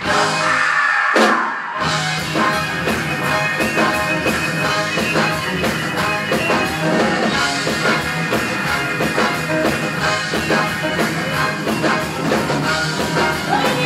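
Live band playing an uptempo funk-soul number: a held note opens it, then the full band comes in about two seconds in, with drums keeping a fast, steady beat.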